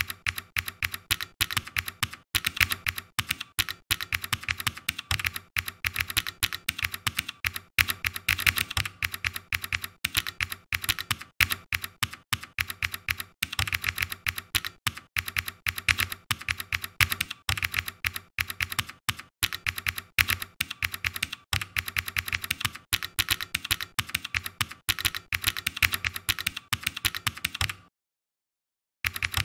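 Computer keyboard typing, a fast, continuous run of keystrokes that stops for about a second near the end before resuming.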